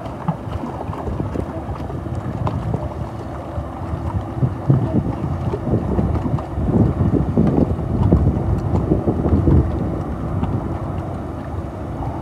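Wind buffeting the microphone in gusts, loudest in the middle, with a faint steady hum beneath.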